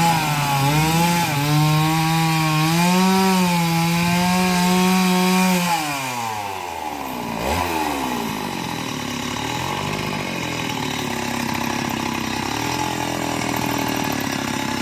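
Two-stroke chainsaw cutting into a young coconut palm trunk at high revs, its pitch dipping and recovering as it loads in the cut. About six seconds in, the throttle is released and the revs fall away to a lower, wavering idle.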